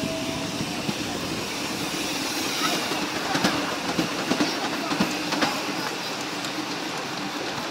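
Ride-on miniature railway train running along its track: a steady rumble of wheels on rail, with a cluster of sharp clicks about halfway through as the wheels cross rail joints.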